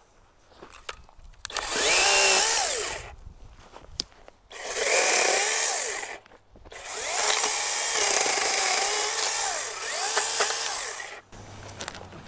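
DEWALT 20V 8-inch cordless pruning chainsaw cutting through a branch in three runs: a short one about a second and a half in, another around five seconds, then a longer one of about four and a half seconds. The motor's whine rises and falls as the new chain bites into the wood, cutting pretty fast.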